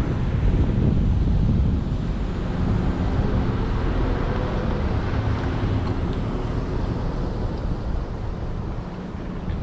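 Car engine running, heard from inside the vehicle: a steady low hum with a faint engine tone, mixed with road and wind noise.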